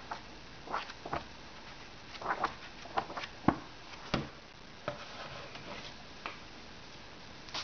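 Paper pages of a hardcover book being turned and flipped by hand: a dozen or so short, irregular paper rustles and flicks.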